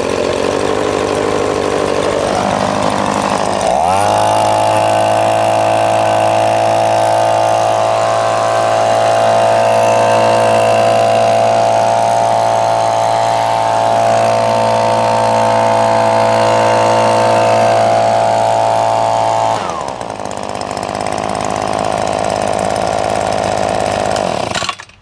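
Echo PB-2520 handheld gas leaf blower's two-stroke engine running at idle, revved up to full throttle about four seconds in and held steady, dropped back to idle near the end, then shut off suddenly.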